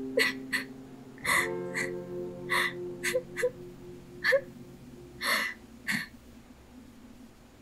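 A woman sobbing: about nine sharp gasping breaths with a few short whimpers, over soft sustained music that fades away.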